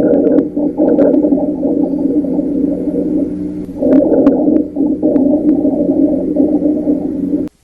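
Lung sounds heard through a stethoscope: a continuous, low-pitched musical sound made of several steady tones at once, with a few faint clicks over it. This is an abnormal continuous breath sound. It swells slightly about four seconds in and stops just before the end.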